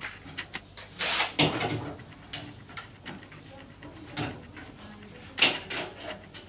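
Scattered clicks, knocks and rattles of work on an aluminium-framed glass shower cabin door as its handles are fitted, with a louder clatter about a second in and a sharp knock near the end.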